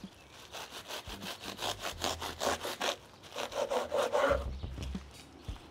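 A knife sawing back and forth through a foil-wrapped sandwich on a toasted roll, the blade rasping through the foil and crusty bread in quick, even strokes. It stops about four seconds in.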